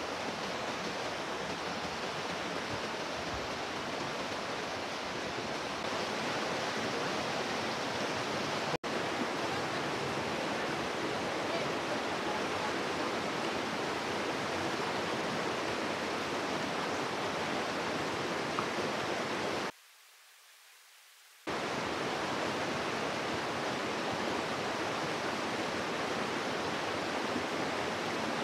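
Steady rush of flowing river water, an even roar with no let-up, which cuts out for an instant about a third of the way in and drops away for a second or two a little past the middle.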